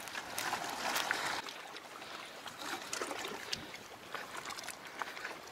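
Footsteps over loose stones and rocks, heard as irregular clicks and scrapes, with small waves lapping against the rocks.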